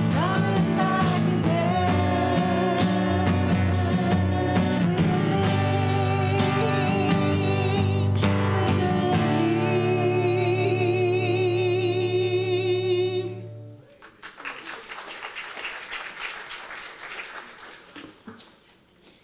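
A church worship band with acoustic guitar and two women singing holds the song's final chord, which stops about two-thirds of the way in. The congregation then claps briefly, the clapping fading away near the end.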